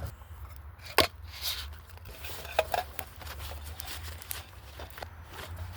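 A baby wipe rubbing and scraping around the inside of a metal cooking pot, with a sharp clink about a second in and a few lighter knocks of the pot.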